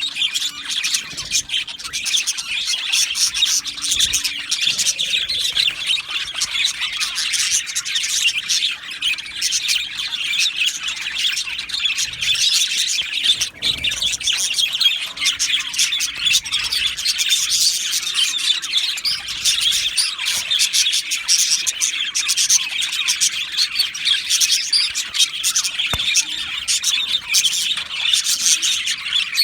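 A flock of budgerigars chattering and chirping continuously, many overlapping high chirps and warbles with occasional squawks.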